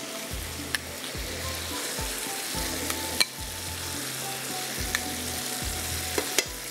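Food sizzling in a pot over a high flame as it is stir-fried (bhunai), with a few sharp clicks from a spoon knocking against the pot.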